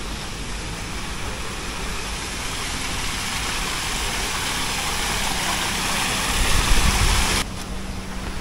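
Small garden waterfall: water rushing and splashing over rocks, growing steadily louder, with a brief low rumble about seven seconds in. The rushing cuts off suddenly near the end.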